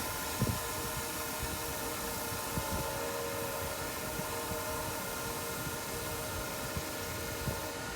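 Wen benchtop wood lathe running at speed with a steady motor whine, a sanding block held against the spinning wooden workpiece.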